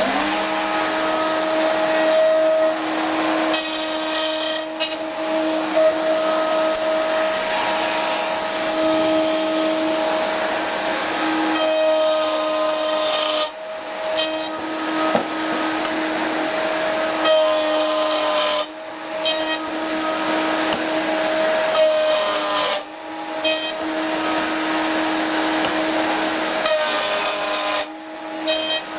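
Circular saw mounted in a Triton Workcentre, running steadily with its dust extractor, starting up at the outset. About five passes of board through the blade cut finger joints, each a rougher rasping over the steady whine, the motor pitch sagging slightly under load.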